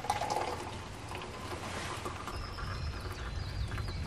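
Hot water poured from a bottle into an insulated stainless-steel tumbler, a steady trickling stream filling the cup.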